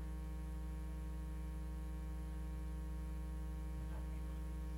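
Steady electrical mains hum with a buzz of many overtones, unchanging in level.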